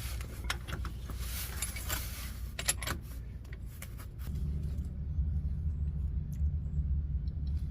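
Torque wrench tightening a mount bolt to 125 foot-pounds: scattered metallic clicks and rattles of the tool on the hardware. A low steady hum comes in about halfway through.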